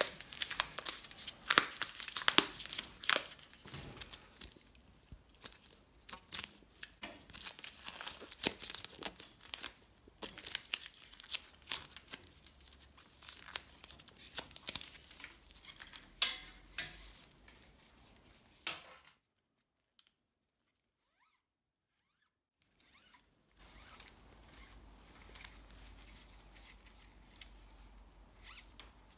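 Handlebar tape being peeled and unwound off drop bars, its adhesive backing tearing away in a dense run of sharp crackles that stops about two-thirds of the way in. Only faint handling noise follows.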